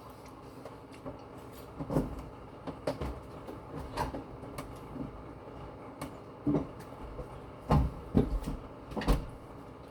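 A handful of short, separate knocks and clatters about a second apart, from handling a food container and utensils while eating.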